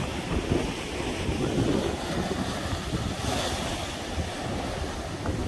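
Hurricane wind buffeting the microphone in a low, uneven rumble over a steady rush of surf, gusting up briefly about three seconds in.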